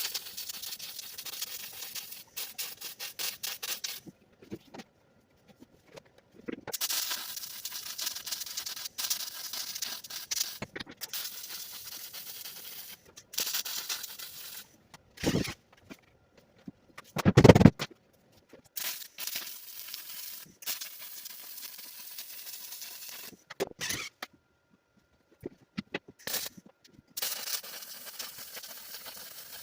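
Wire-feed welder laying beads on steel subframe-connector tubing: a steady crackling hiss in runs of a few seconds, starting and stopping abruptly between welds. Two heavy thumps come around the middle.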